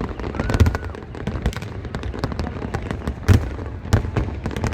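Fireworks exploding: dense crackling with several heavy booms, the loudest about half a second in and about three seconds in.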